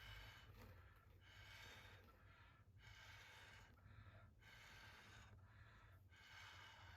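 Faint, repeated puffs of breath blown through a drinking straw, about five puffs each under a second long with short pauses between.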